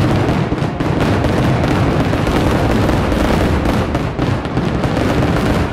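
Fireworks show: a loud, continuous barrage of many bursts and booms in quick succession, overlapping into a steady rumble.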